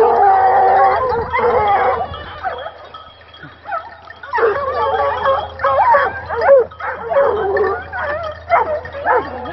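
A pack of griffon nivernais hounds baying a wild boar held at bay in the brush: a dense chorus of rapid high barks and yelps, with a lull of about two seconds near the middle before the baying picks up again.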